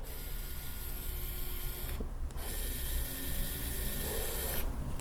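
Xiaomi Mijia cordless electric screwdriver running unloaded: its small motor and gearbox give a steady whirr. It runs twice, stopping for a moment about two seconds in and stopping again shortly before the end.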